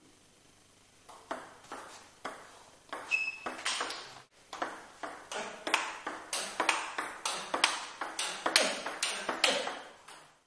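Table tennis rally: the ball clicking off the bats and bouncing on the table, at first a few scattered hits and then a steady run of about two to three hits a second that stops just before the end. The player's bat is a carbon blade fitted with Avalox Sogno hard rubber.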